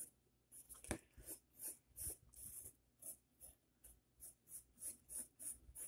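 Pencil strokes scratching on paper while drawing: a faint run of short strokes, two or three a second, with a sharper tick about a second in.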